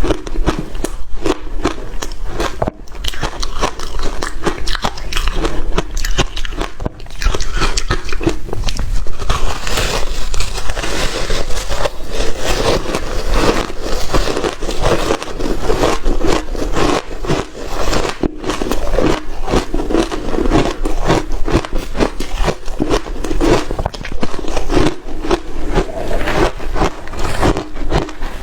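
Ice being bitten and chewed close to the microphone: dense, continuous crunching with rapid cracks, dipping briefly twice in the first few seconds.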